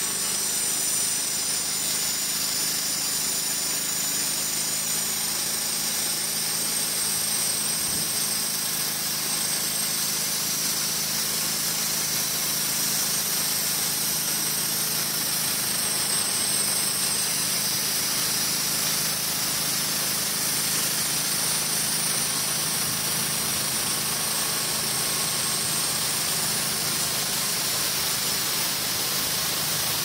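Wood-Mizer LT35 hydraulic sawmill running steadily at full speed, its band blade sawing lengthwise through a squared log, with a constant engine hum under the hiss of the cut.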